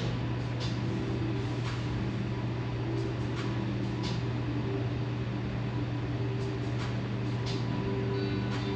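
Steady low hum, with faint held tones that come and go above it and a few soft ticks.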